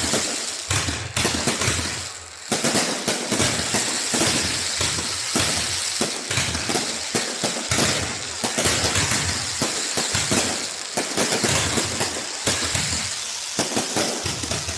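Fireworks display: a dense, continuous barrage of bangs and crackling, with a brief lull about two seconds in.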